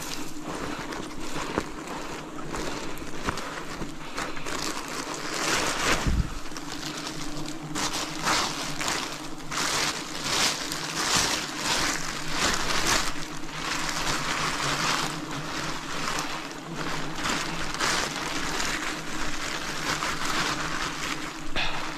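Swarm of wild honeybees buzzing in a steady low drone, under repeated surges of rushing noise and small knocks.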